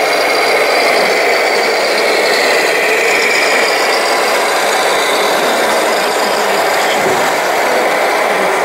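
Radio-controlled 1/14-scale Volvo FH16 750 tractor unit driving slowly with a low-loader trailer, its engine sound running steady and rattly.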